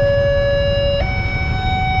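Electronic railway level-crossing alarm sounding its two-tone warning, switching between a lower and a higher pitch about once a second, the signal that a train is approaching. A low rumble of idling traffic lies underneath.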